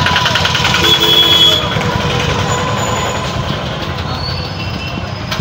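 Loud, steady outdoor background noise with a low rumble and a thin, constant high tone. A few brief higher tones come about a second in.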